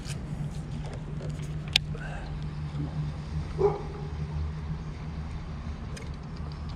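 Steady low hum of the boat's electric trolling motor, with a sharp click just under two seconds in and a single short dog bark a little after halfway.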